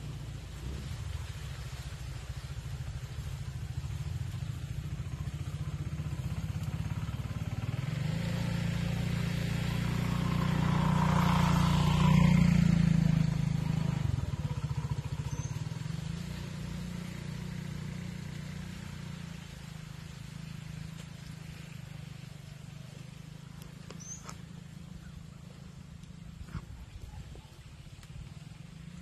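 A small motorcycle engine runs steadily, swelling to its loudest about twelve seconds in and then easing back down.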